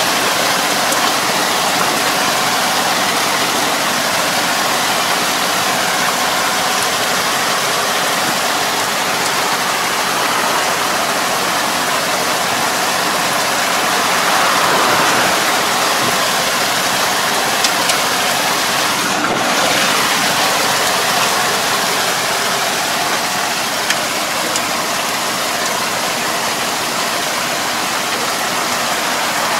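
Tractor engine running under load while its rear drive harrow churns a flooded rice paddy, a steady rush of splashing water and mud over the engine's hum. It swells briefly about halfway through.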